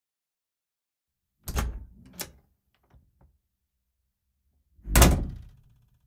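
Solid wooden interior door worked by its handle: a sharp clunk of handle and latch with a second click just after, two faint ticks, then the door shut hard with a heavy slam about five seconds in that rings briefly.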